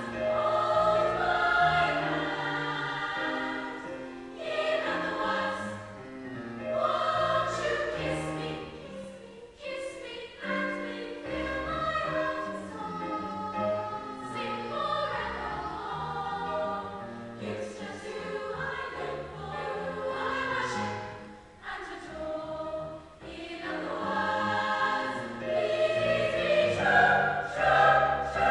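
A large school choir singing in harmony, in sustained phrases that swell and drop back with brief breaks between them.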